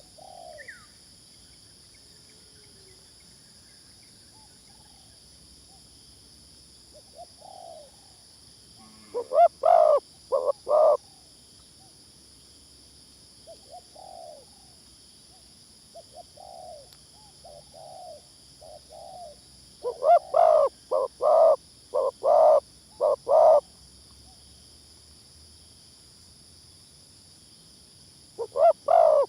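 Spotted doves cooing. A near bird gives loud bursts of quick, repeated coo notes about nine seconds in, again in a longer run about twenty seconds in, and near the end. Fainter coos from other doves come in between. A steady high-pitched hum runs underneath.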